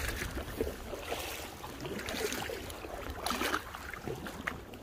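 Kayak paddle strokes splashing in lake water about once a second, with wind rumbling on the microphone.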